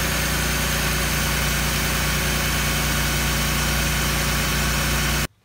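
BMW E46 M3's S54 inline-six idling steadily, run to check the newly fitted oil sensor fittings for leaks. The sound cuts off suddenly just over five seconds in.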